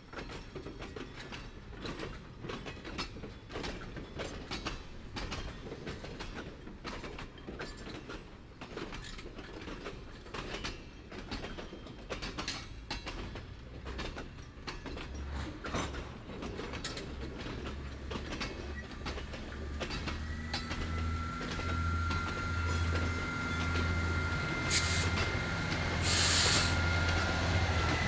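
Freight cars rolling slowly past, their wheels clicking and clacking over rail joints. Partway through, a low rumble builds, and a steady high wheel squeal sets in, with two short hisses near the end.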